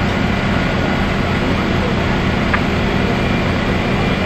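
Fire engines' diesel engines and pumps running steadily under load: a dense, even low drone with a faint high whine over it. A short click about midway.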